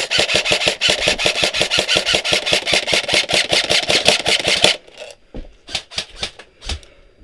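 Airsoft electric rifle firing one long full-auto burst of about eight to nine shots a second, which stops near the two-thirds point; a few separate sharp clicks follow.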